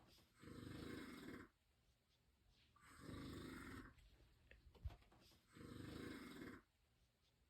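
Snoring: three snores, each about a second long, coming roughly every two and a half seconds, with a brief tap between the second and third.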